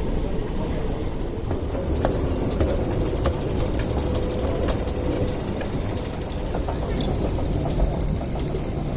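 Busy underground railway station concourse: a steady wash of passengers' footsteps and murmuring voices, with scattered sharp clicks. A held mid-pitched tone sounds for about three seconds in the middle.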